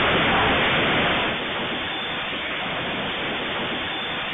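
Loud, continuous rushing noise in a security camera's thin, narrow-band audio as a shop's shelves shake and goods fall to the floor during an earthquake. It is loudest for the first second or so, then holds steady, with no single crash standing out.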